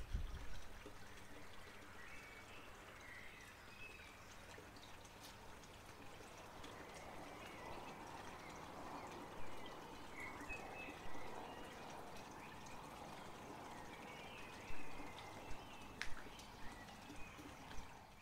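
Faint outdoor evening ambience: a steady low hiss with a few short, distant bird-like chirps, and scattered soft ticks or drips that come more often in the last few seconds.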